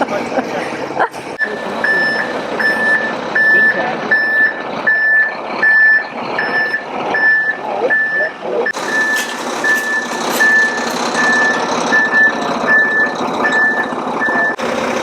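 Concrete mixer truck's reversing alarm beeping evenly over its running engine as it backs up. The beeps start about a second and a half in and stop just before the end.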